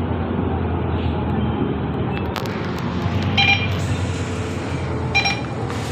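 Mercedes-Benz Citaro diesel bus heard from inside the cabin, its engine and road noise running steadily. Two short electronic beeps sound about two seconds apart, a few seconds in.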